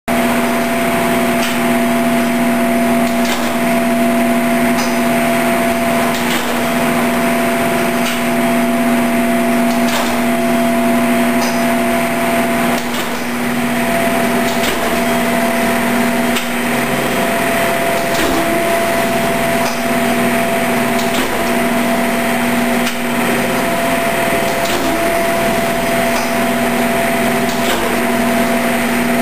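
Norton 10-by-60-inch hydraulic surface grinder running: a steady machine hum, with a sharp knock about every one and a half seconds.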